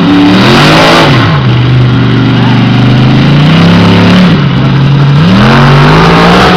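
Monster truck engine revving very loud, its pitch climbing and dropping several times with a steadier stretch in the middle.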